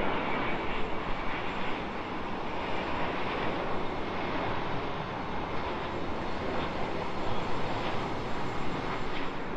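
Virgin Atlantic Airbus A330-900neo's twin turbofan engines passing low on final approach: a steady jet roar.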